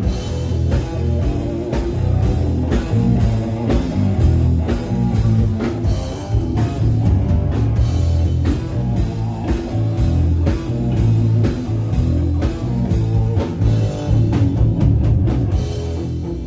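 Rock band playing live, with guitar over a drum kit keeping a steady beat.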